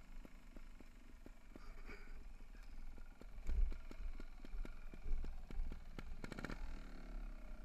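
Mountain bike descending a rough forest trail, heard from a camera on the rider: a regular light ticking with low wind thumps on the microphone, and a short burst of rattling about six seconds in.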